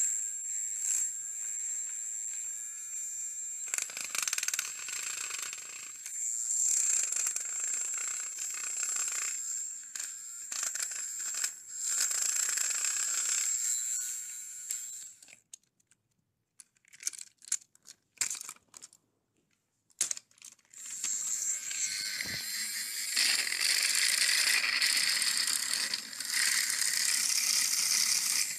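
Battery-powered Plarail toy train (Duck) running with a high motor whine and rattling plastic gears, mixed with clicks and knocks of handling. It stops for a few seconds about halfway, with only scattered clicks, then starts up again and runs louder.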